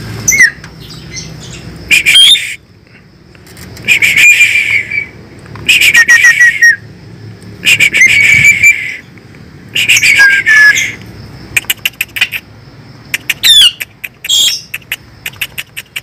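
Javan pied starling (jalak suren) calling loudly: harsh, rasping squawks repeated about every two seconds. Near the end these give way to a quick run of clicks and short whistled glides.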